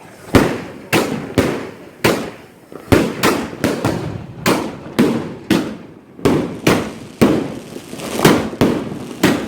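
Fireworks going off in a rapid, irregular run of loud bangs, about two a second, each trailing off in a short echo.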